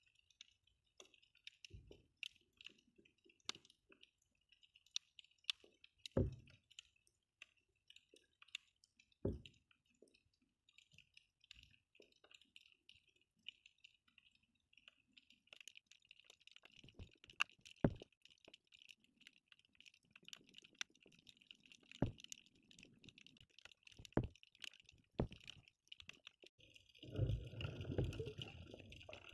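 Faint underwater sound picked up by a submerged camera: a steady crackle with scattered sharp clicks and a few low thumps. It turns to louder low rumbling of stirred water near the end.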